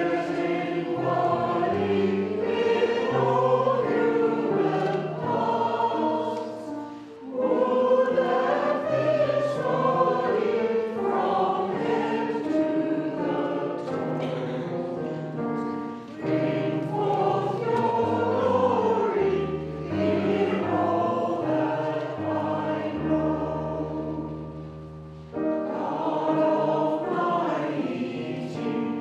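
A church congregation singing a hymn with instrumental accompaniment holding low notes underneath. The singing comes in phrases with short breaks between lines, about 7, 16 and 25 seconds in.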